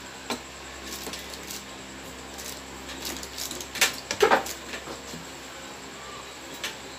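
Scattered clicks and knocks of metal and plastic parts as a microphone boom arm and pop-filter clamp are handled and clamped together. The loudest clatter comes about four seconds in.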